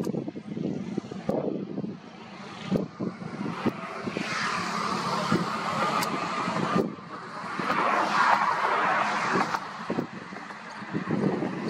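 Road traffic going by: two vehicles swell up and fade away one after the other, over a steady outdoor rumble.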